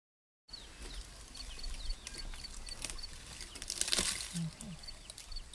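African elephant browsing in a thorny acacia bush: twigs and branches crackling and snapping as it pulls at them, loudest about four seconds in. A small bird gives a string of short, high chirps at the same time.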